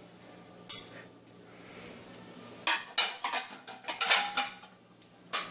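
Dishes clinking and clattering as they are lifted out of a dishwasher and handed over: one sharp clink about a second in, a run of clinks between three and four and a half seconds in, and another near the end.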